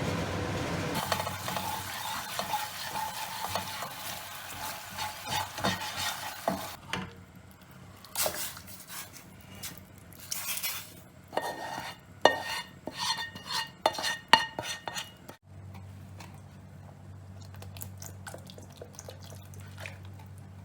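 Food sizzling in a hot pan as a spatula stirs it, scraping and clinking against the metal, then a run of sharper metal-on-metal knocks with a ringing tone. About two-thirds of the way through this gives way to a steady low hum with faint ticks.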